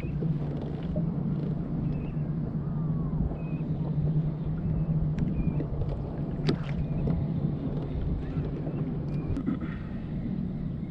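A boat engine drones steadily at a low pitch, easing off near the end, over wind and water rumble on the microphone. A couple of brief clicks come in the second half.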